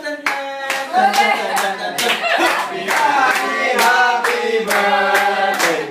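A small group singing a birthday song together, clapping along about twice a second.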